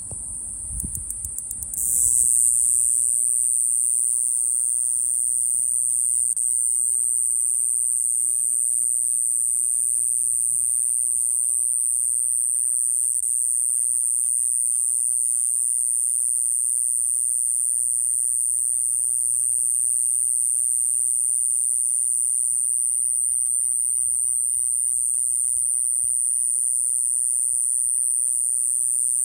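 Iwasaki grass cicada (Mogannia minuta) singing: a short stutter of rapid clicks, then a continuous, high-pitched buzz that runs on without a break.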